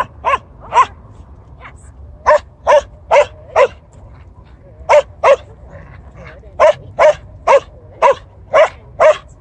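A dog barking repeatedly: short, sharp barks about two a second, in runs of two to four with brief pauses between.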